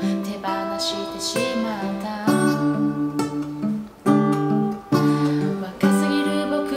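Acoustic guitar strummed as accompaniment to a singer singing a Japanese pop ballad.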